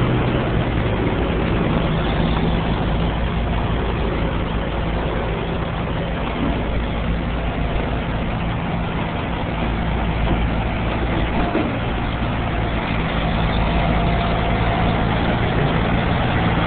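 A heavy truck's diesel engine idling steadily, a low even hum under a wash of open-air noise.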